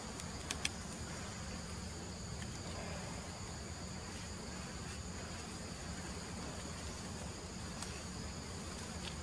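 Insects trilling steadily in two high, unbroken tones over a low steady hum, with two faint clicks about half a second in.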